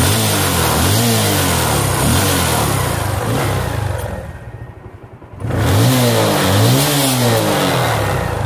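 Bajaj Pulsar 135 LS single-cylinder motorcycle engine revved up and down several times, easing back briefly halfway through before revving again. The exhaust now runs without the puffing leak at the engine joint, its loosened bolts just tightened.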